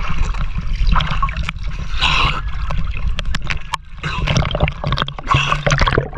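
Pond water splashing and sloshing right at an action camera held at the surface by a swimmer, with many sharp little splashes and drops against the housing. Near the end the camera goes under and the sound turns to a muffled gurgle.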